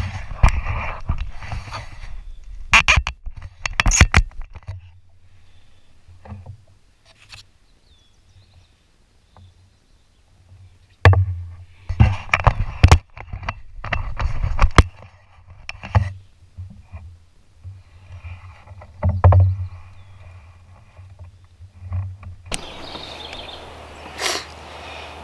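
Irregular knocks, thumps and scraping of gear being handled in and around a canoe, with quiet gaps between. Near the end it switches abruptly to a steady outdoor hiss.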